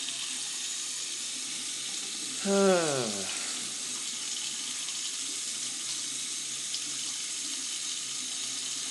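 Bathroom tap running steadily into the sink, still cold while the tankless water heater fails to fire. About two and a half seconds in, a short pitched sound slides downward for under a second, the loudest moment.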